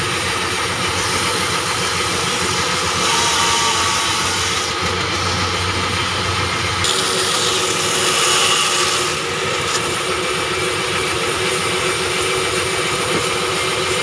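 Sawmill band saw and its drive running steadily while cutting an acacia log, the machine noise swelling briefly twice as the blade works through the wood.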